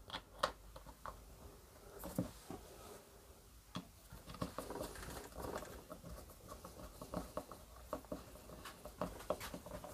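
Faint, scattered clicks and light scraping of small metal parts: a washer and screw being fitted onto a chainsaw recoil starter pulley and screwed in.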